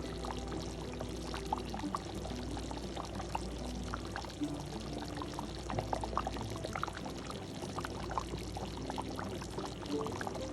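Pot of humba, Filipino braised pork, simmering: the sauce bubbles steadily with a dense, irregular run of small pops.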